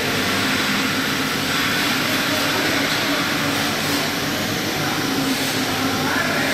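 SF3040Q-4S CNC machine running: a steady mechanical whir and hiss from the spindle and the axis drives as the axes jog, with faint shifting whines.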